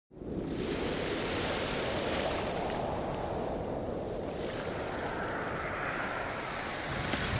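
Sea surf and wind ambience, a steady rushing that starts abruptly out of silence and swells near the end.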